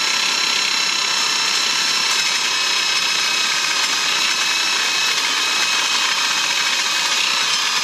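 Handheld grinder with an abrasive cutting wheel cutting steadily through a steel car coil spring to shorten it: a loud, unbroken high whine over harsh grinding.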